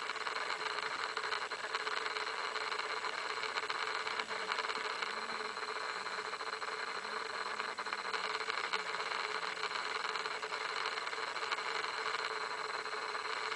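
Game-drive vehicle's engine idling with a steady hum.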